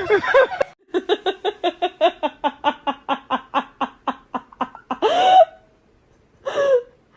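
A person laughing hard in a fast, even run of 'ha-ha-ha' pulses, about five a second, for some four seconds. This is followed by two short voiced sounds, one about five seconds in and one about six and a half seconds in.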